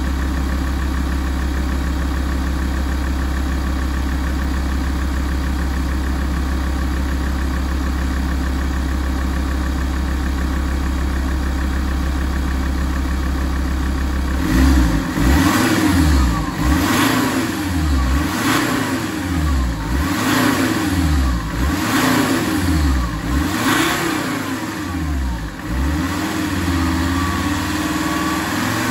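Alfa Romeo 166 2.4 JTDm five-cylinder turbodiesel idling steadily, then revved about seven times in quick succession from about halfway through, each rev rising and falling back, before settling to idle near the end.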